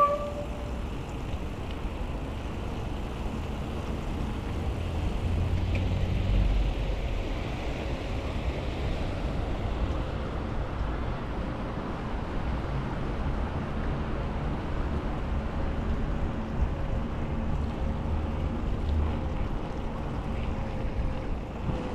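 Steady wind noise rumbling on the camera microphone of a mountain bike in motion, with the tyres rolling over wet pavement.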